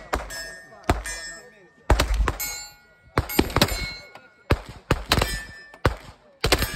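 Gunfire on a range: about a dozen shots at irregular spacing, roughly two a second, each followed by metallic ringing, typical of steel targets being hit.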